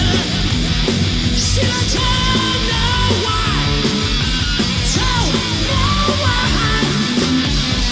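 Live heavy metal band playing an instrumental section: a distorted electric guitar lead with held and bent notes over bass and a steady drum beat.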